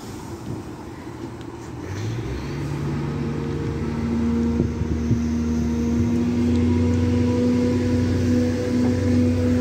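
Diesel engine of a rail vehicle powering up for departure. Its low, pitched running sound builds about two seconds in, climbs until about four seconds in, then holds at a steady, loud note.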